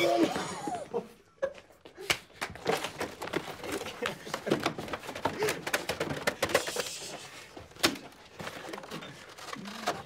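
Rapid knocks and thuds against a cardboard battleship costume worn by a person, with hushed voices and laughter mixed in.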